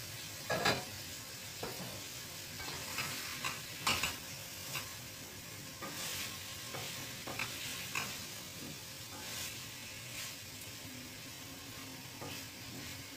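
Chicken and potato pieces sizzling in a ceramic-coated frying pan as a wooden spatula stirs them, with scattered scrapes and knocks of the spatula against the pan. The loudest knock comes about half a second in.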